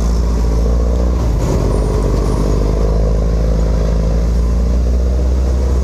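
Diesel engine of heavy logging equipment running steadily, a loud, deep, even drone.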